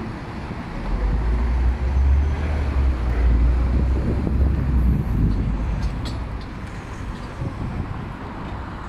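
Street traffic noise, with a heavy low rumble from about one to five seconds in, then a fainter, even hum.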